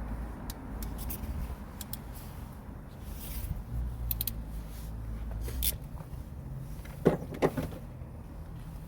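Scattered clicks and handling noises from working on car interior trim and wiring, with two sharper knocks about seven seconds in, over a low rumble.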